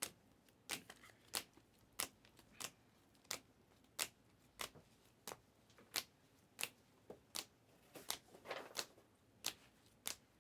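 Trading cards being flipped and laid down one after another, a sharp snap about every two-thirds of a second, with a short rustle of handled cards about eight seconds in.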